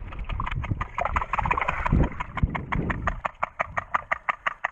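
Pool water heard through a submerged action camera: a muffled rumble of splashing and bubbles from a dive, with a rapid, even ticking of about six clicks a second starting about a second in.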